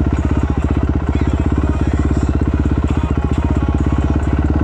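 Yamaha YZ426F dirt bike's single-cylinder four-stroke engine idling steadily, with an even, rapid exhaust beat and no revving.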